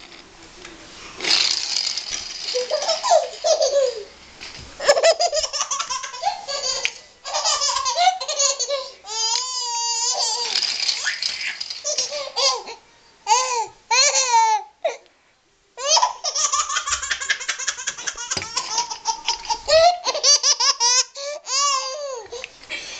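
An eleven-month-old baby laughing in a fit of high-pitched, repeated bursts of laughter and giggles, with a short pause about fifteen seconds in.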